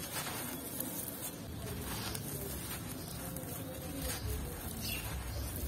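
A pressed block of sand and gritty red dirt being crushed in the hands, crunching and crumbling as loose sand and grit stream down onto sandy ground.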